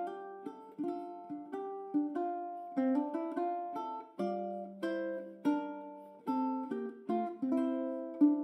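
Background music: a plucked-string instrument, ukulele or guitar, picking a gentle melody of notes that each ring and fade.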